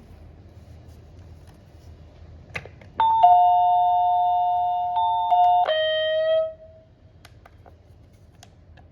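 A click, then an electronic chime: two steady tones sounding together for about two and a half seconds, then a step down to a single lower tone that fades out. Faint small clicks come before and after it.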